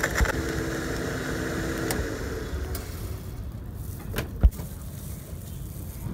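Countertop electric blender running, churning a pineapple shake with ice and milk, then switched off about two seconds in. A couple of knocks follow, one sharp one about four and a half seconds in.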